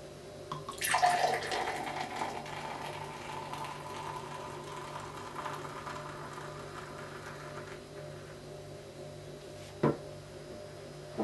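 Pale ale poured vigorously from a glass bottle into a tall glass: a splashy start about a second in, then a steady pouring and foaming hiss that tails off after about eight seconds. Near the end, one sharp knock as the bottle is set down on the table.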